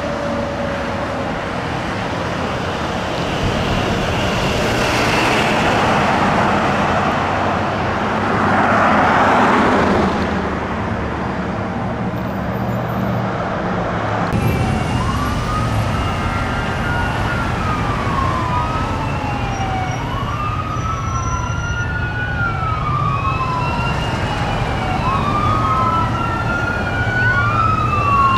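Fire engine and road noise as the truck drives off, swelling for a moment about a third of the way in. About halfway through, this gives way to an ambulance siren on a wail, rising and falling every two to three seconds over traffic noise.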